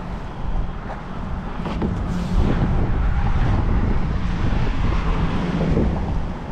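A vehicle driving past, its rumble swelling a couple of seconds in and easing off near the end, with wind blowing on the microphone.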